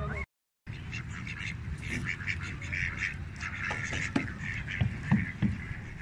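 Mallard ducks quacking: a busy run of short quacks, with a few louder ones about four to five seconds in.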